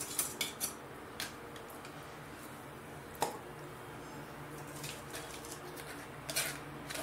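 A few light clinks and taps of a steel grinder jar and a spoon against a plastic strainer and glass bowl, as a thick blended paan mixture with ice cubes is emptied into the strainer and stirred. The loudest tap comes about three seconds in, and a small cluster of taps comes near the end.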